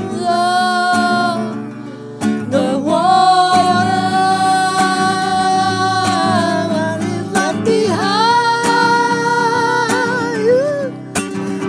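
A song: a voice holding long sung notes with a slight waver, over a plucked acoustic guitar accompaniment.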